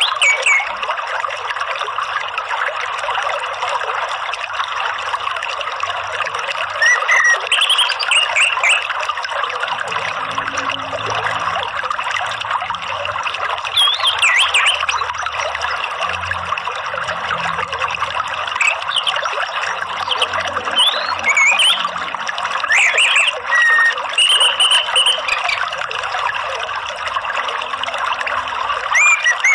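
Steady trickling, running water with short bird chirps every few seconds, each gliding up or down in pitch, coming more often in the second half.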